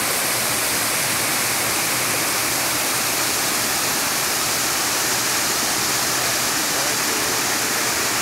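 Water from a pond pouring over a concrete spillway and churning white into the channel below: a steady rushing noise.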